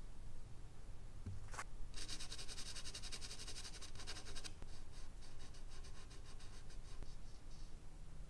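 Charcoal pencil scratching on medium-surface drawing paper in rapid short hatching strokes, loudest for a couple of seconds from about two seconds in, then lighter strokes that fade out near the end.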